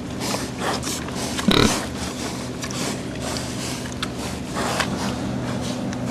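Several pigs grunting in short, irregular bursts, the loudest about a second and a half in, over a steady low hum.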